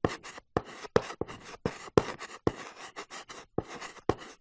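Chalk scratching on a blackboard as words are written, about three to four quick strokes a second, each starting with a sharp tap and trailing off in a scratchy hiss.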